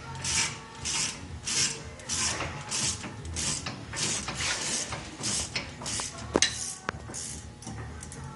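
A brush scrubbing the front brake caliper and bracket of a 1999 BMW 328i in quick back-and-forth strokes, about two a second, to clean them. A sharp metallic click comes about six seconds in.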